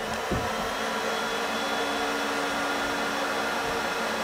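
Electric heat gun running steadily, blowing hot air into a wrapped exhaust header: a constant rush of air with a steady motor hum.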